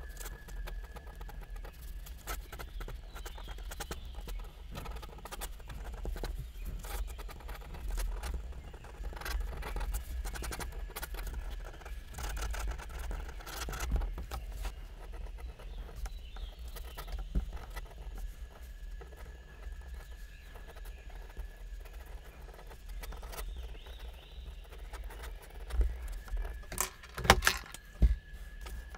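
Pen nib scratching and tapping across paper in quick, irregular sketching strokes, with a faint steady high whine underneath. A few sharper knocks come near the end.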